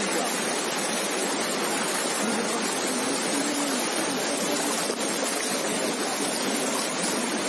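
River in flood, its fast, turbulent brown water rushing past with a steady, unbroken noise.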